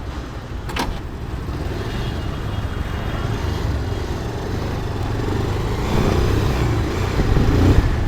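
Bajaj Pulsar 220F motorcycle being ridden, its single-cylinder engine running with a steady low rumble under road noise. There is a short sharp click about a second in.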